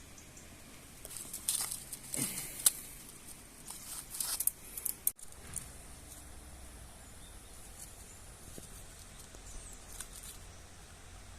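Crisp rustling, crackling and snapping handling noises for a few seconds, cut off abruptly about five seconds in. A faint steady outdoor hiss follows.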